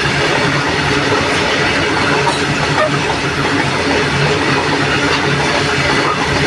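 A train running on the track: a steady rumble and rail noise with a faint low hum.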